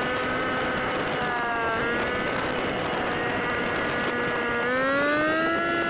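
Side-by-side off-road vehicle's engine running under way over a steady rush of wind and tyre noise; its pitch eases down, holds, then climbs about four and a half seconds in as it speeds up.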